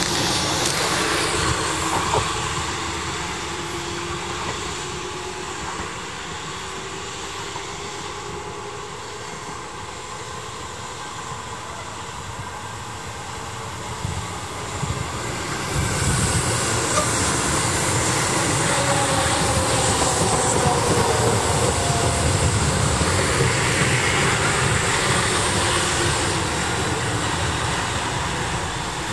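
Two Tobu 6050-series electric trains. At first one pulls away with a rising motor whine that fades as it leaves. About fifteen seconds in, another runs in alongside, louder, with a falling motor whine as it slows and the rumble and clatter of its wheels on the rails.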